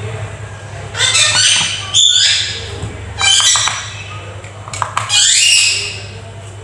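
A bird squawking: about four harsh calls, each rising in pitch, a second or two apart, over a steady low hum.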